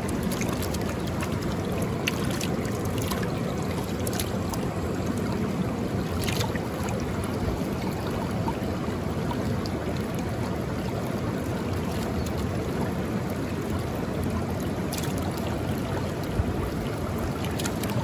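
Creek water rushing steadily, a full, low-heavy wash of noise, with a few faint clicks scattered through it.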